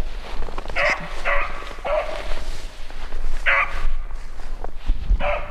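Beagle baying on a rabbit's scent: five short, loud barks, irregularly spaced about half a second to a second and a half apart. This is the hound giving voice as she trails the rabbit.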